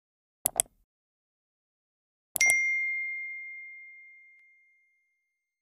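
Two quick clicks, then two more clicks and a single bright bell-like ding that rings on one clear pitch and fades away over about two and a half seconds.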